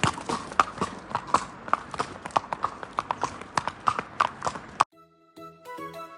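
Horse's hooves clip-clopping at a walk, an even rhythm of about three strikes a second. About five seconds in they cut off abruptly and background music begins.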